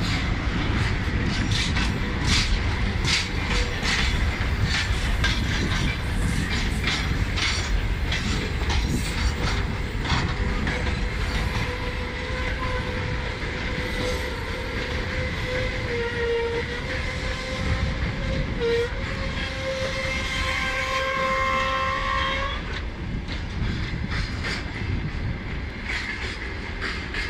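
Freight wagons rolling past close by, their wheels clicking rhythmically over the rail joints over a low rumble. Through the middle a long, steady pitched tone rises in strength and cuts off suddenly about 22 seconds in.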